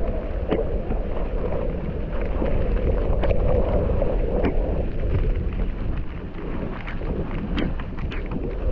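Wind buffeting the action camera's microphone as a mountain bike rolls down a dry dirt trail, with a steady rumble from the tyres and frame and scattered sharp clicks and rattles as the bike goes over bumps.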